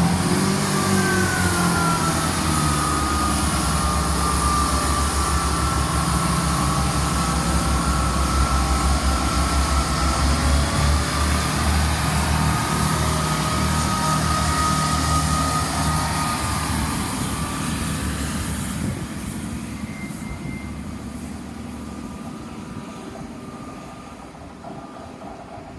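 Chiltern Railways Class 165 diesel multiple unit pulling away under power: low diesel engine rumble with a high whine above it. Steady and loud for about sixteen seconds, then fading steadily as the train draws off into the distance.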